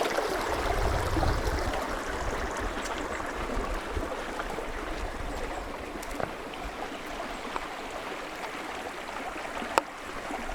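Creek water running steadily, a continuous rushing babble. A low rumble sits under it for the first few seconds, and there is a single sharp click near the end.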